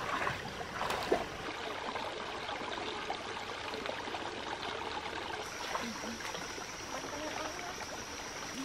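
Shallow rocky stream trickling, a steady watery rush, with a few light knocks near the start; a thin steady high tone joins about halfway through.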